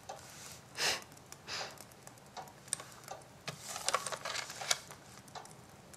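Faint, irregular small clicks and soft paper rustles as a folded newspaper clipping is handled and opened out.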